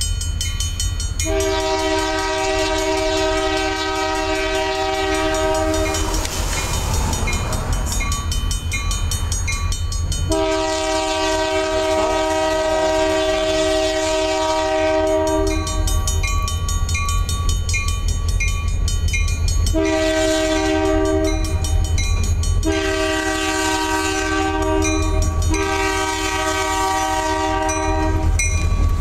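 Locomotive air horn sounding the grade-crossing pattern: long, long, short, long. Each blast is a chord of several tones. Under it are a steady low diesel rumble from the approaching train and a crossing signal bell ringing in an even, rapid beat.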